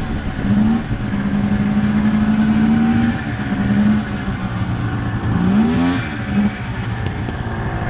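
Polaris 700 snowmobile engine running under way, heard from the rider's seat. Its pitch rises with the throttle about half a second in and again around five and a half seconds in, with a steady high whine over it.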